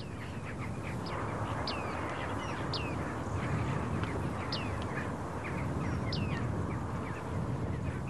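Bearded tits calling in a reedbed: a string of short, high calls, each sliding steeply downward, repeating every second or so over a steady background hiss.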